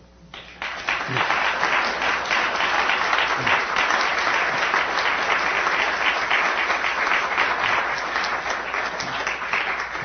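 Audience applauding. The clapping builds quickly about half a second in, holds steady, and begins to die away near the end.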